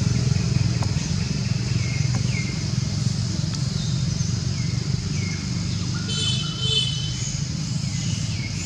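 Steady low rumble of motor traffic, with short high chirps coming every second or so and a steady high-pitched hiss like insects. A brief whistling call with several tones sounds about six seconds in.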